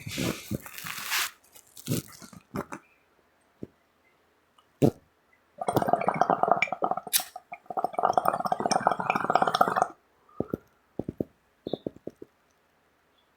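Bong water bubbling and gurgling as smoke is drawn through it, in two stretches of about two seconds each. A breathy hiss opens it, and scattered sharp clicks fall between and after the bubbling.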